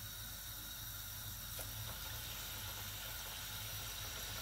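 Hot oil in a deep pan sizzling faintly as battered chicken pakodi is dropped in to deep-fry, with a low steady hum underneath.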